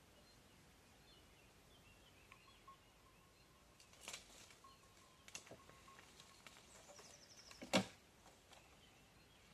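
A few faint, scattered crackles and snaps of dry reeds and twigs as a deer moves through the shoreline brush, with one sharp, louder snap near the end.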